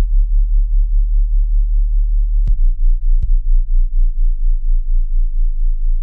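Subwoofer bass test track: a very deep, loud bass tone pulsing rapidly without a break. About halfway through come two sharp clicks less than a second apart.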